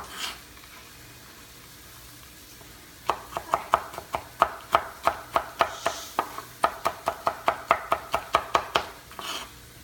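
Chef's knife chopping nuts: a rapid, even run of knife strikes, about five a second, starting about three seconds in and stopping shortly before the end.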